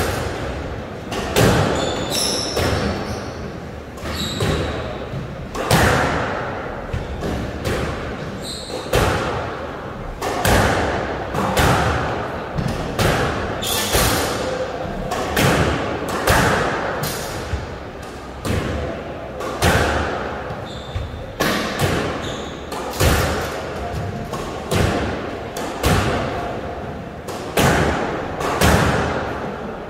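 Squash rally: the ball is struck by rackets and smacks against the walls and glass in a steady exchange, a sharp hit roughly every second with the echo of the court behind it. Short high squeaks of shoes on the wooden floor come between some of the hits.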